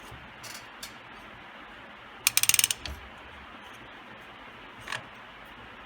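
The emergency brake pedal assembly of a 1964–66 Thunderbird ratchets: a loud burst of rapid clicks about two seconds in, lasting about half a second. A few lighter clicks and a knock come before and after it.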